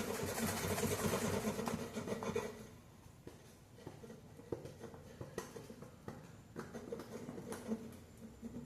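Sandpaper rubbing by hand over the model's surface, a dense scratchy sound that stops about two and a half seconds in. Quieter scattered scrapes and small clicks of handling follow.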